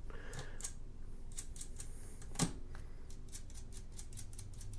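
Light metallic clicks and ticks of a nut being run by hand along the threaded clutch cable adjuster on a Royal Enfield Hunter 350, set to take up free play in the clutch. One click about halfway through is louder than the rest.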